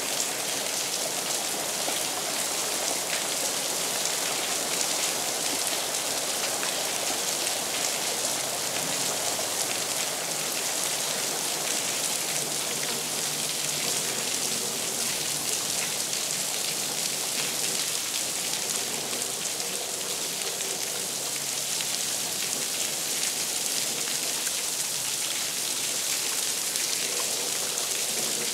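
Steady rain falling on wet paving, an even hiss that does not change.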